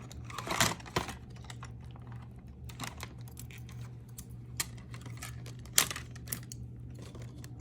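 Light, scattered clicks and taps of costume jewelry pieces being handled and set down on a desk, over a steady low hum.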